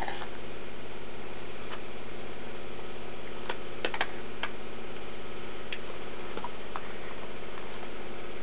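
Light-up baubles clicking and tapping as they are handled, a few scattered knocks with a small cluster about halfway through, over a steady hum.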